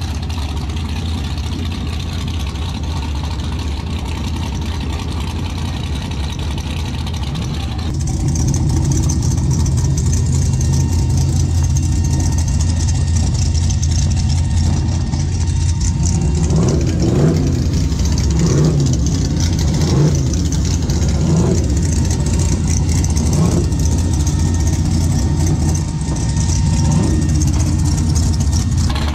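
Drag race car engines idling, with a series of short throttle blips in the second half.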